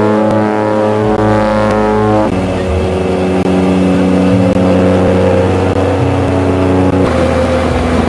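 Twin-turboprop engines and propellers droning inside the cabin of a de Havilland Twin Otter in flight: a loud, steady hum of several held tones. The mix of tones changes abruptly about two seconds in and again about seven seconds in.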